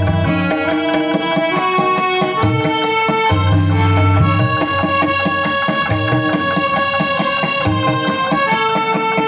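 Harmonium playing a melody in held reedy notes over a steady tabla rhythm, with deep low strokes from the bass drum of the tabla pair coming back every second or so.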